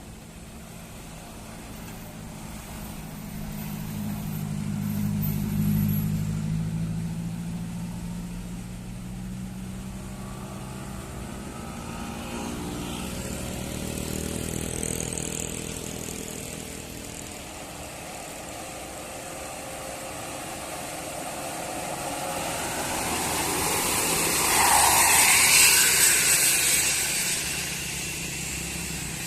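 Vehicles passing on an uphill road: a low engine swells and fades about five seconds in, another engine rises in pitch as it climbs, and the loudest pass comes near the end.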